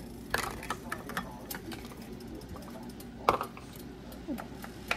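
Wooden spoon stirring stir-fried meat and vegetables in a stainless steel pan: scattered clicks and knocks of wood on metal, the loudest about three seconds in, over a faint steady background.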